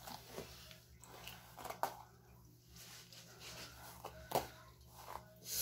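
A hairbrush swishing through long hair in a few separate strokes, the loudest near the end.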